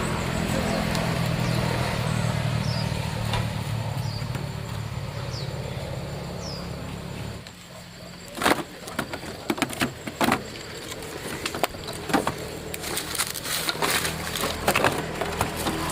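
An engine running steadily with a low hum, which stops about seven seconds in. A series of irregular sharp knocks and clatters follows.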